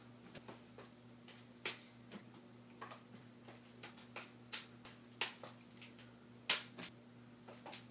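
Flower stick (juggling stick) being practised: irregular sharp clicks and taps as the hand sticks strike the centre stick, one or two a second, with the loudest knock about six and a half seconds in. A faint steady low hum runs underneath.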